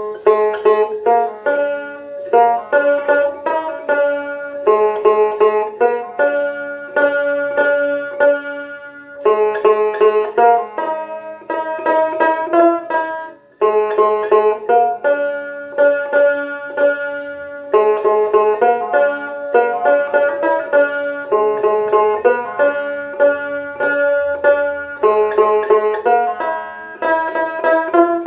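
Bengali dotara, a skin-bellied plucked folk lute, played solo: a picked melody of quick repeated notes, with brief breaks between phrases.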